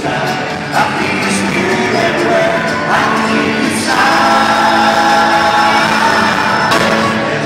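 Jam band playing live with singing over sustained chords.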